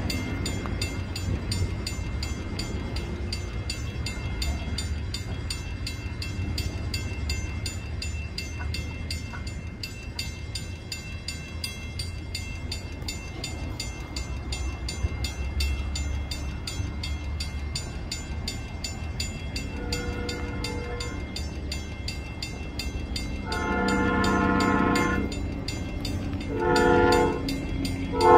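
Grade-crossing bell ringing in a fast, steady rhythm over wind rumble on the microphone. From about twenty seconds in, an approaching Amtrak train's horn sounds for the crossing: faint at first, then a long blast and a shorter one near the end.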